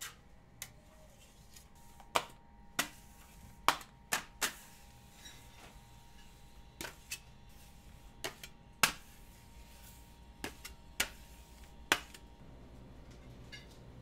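Metal offset spatula and scraper clicking and tapping against each other and the stone slab while molten chocolate is worked for tempering. The sharp clicks come at irregular intervals, about a dozen of them, over a faint steady hum.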